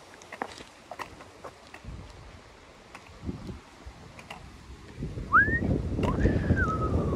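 Wind buffeting the microphone, loud from about five seconds in, with a bird's whistled notes over it: a short rising note, then a longer one that slides down. Faint clicks come earlier.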